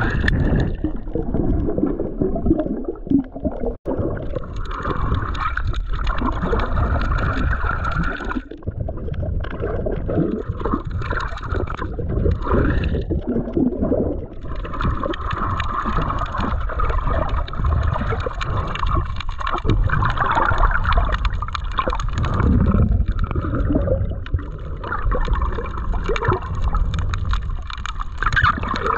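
Muffled underwater water noise heard through a GoPro's waterproof housing while snorkeling: irregular gurgling and sloshing. The sound cuts out for an instant about four seconds in.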